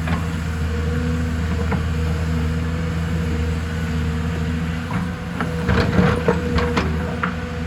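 Excavator's diesel engine running steadily, with a cluster of sharp knocks and clatter from about five seconds in.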